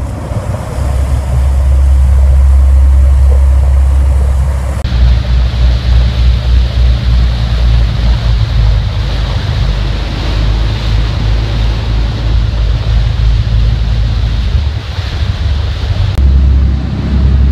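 Wind buffeting the microphone on a fishing boat under way, over the boat's engine running and the rush of its churning wake. The sound shifts abruptly about five seconds in and again near the end.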